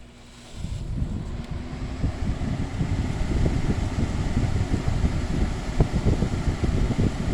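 Old Gibson window air conditioner switched on: its blower fan starts about half a second in and rises to a steady rush over a couple of seconds, its airflow buffeting the microphone. The compressor has not yet kicked in.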